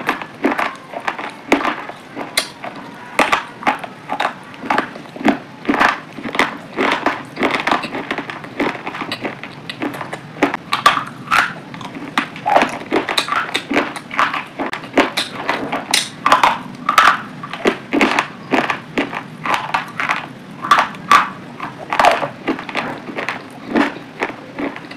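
Pomegranate arils chewed close to the microphone: a steady run of crunches, about two or three a second.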